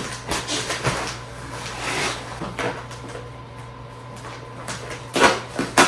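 Irregular rustling, clicks and clunks from a compressed sofa cushion and its plastic wrapping being handled and unwrapped, with two sharp knocks near the end.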